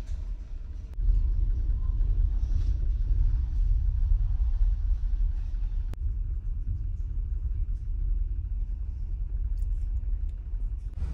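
Steady low rumble of the car ferry Dōgo's engines and hull under way, heard inside a capsule berth, with a single sharp click partway through.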